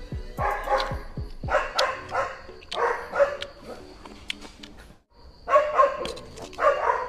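A dog barking in short bursts, about five barks spread over several seconds, the last two coming as a close pair near the end.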